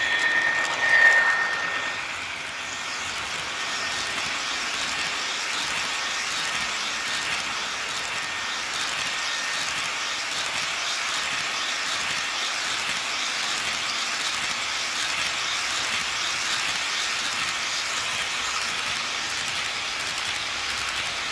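Model freight train rolling past on its track: a steady rush of wheel and rail noise as the cars go by. A brief high tone about a second in is the loudest moment.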